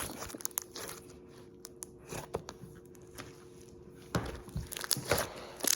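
Slime being handled, giving faint scattered clicks and small pops, with a denser run of louder clicks near the end.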